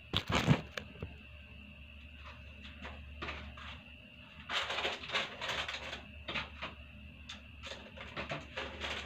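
Handling sounds of kitchen items at a counter: a loud knock about half a second in, then from about halfway a busy run of clicks, taps and rustles. A faint, steady high whine runs underneath for most of the time.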